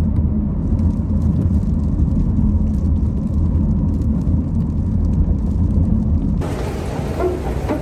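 Steady low rumble of road and engine noise heard inside a car cabin at highway speed. About six and a half seconds in, the sound changes abruptly to a brighter, hissier noise.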